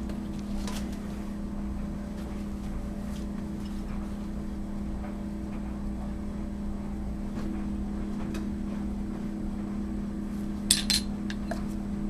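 Parts of a failed ejector pump check valve being handled: a few light clicks and a sharp metallic clink near the end, over a steady low hum.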